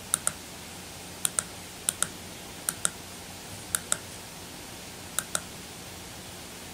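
Computer mouse button clicking, the clicks coming in pairs about a sixth of a second apart, six pairs in a row, over a steady faint hiss.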